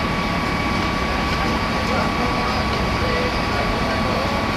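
Steady machine noise: a constant low rumble and hiss with a thin, unchanging high whine, under faint crowd chatter.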